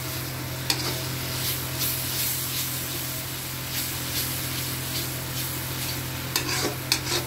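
Tomato and onion masala sizzling in hot oil in a pan while a spatula stirs it, with a few short scrapes of the spatula against the pan. The masala is being fried down with the tomato paste, and a steady low hum runs underneath.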